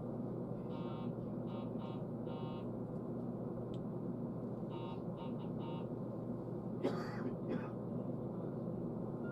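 Steady hum inside a stopped train, with an electronic buzzer sounding in two groups of four short bursts about four seconds apart, then two sharp knocks near the end.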